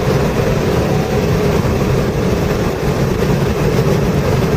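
Subaru WRX's turbocharged flat-four engine pulling at full throttle as the car accelerates down a straight, heard inside the cabin with road and wind noise.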